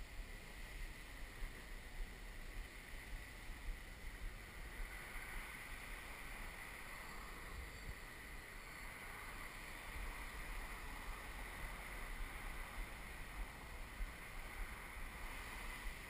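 XAircraft X650V X8 multirotor's eight motors and propellers hovering at a distance, a steady whir, with wind rumbling on the microphone.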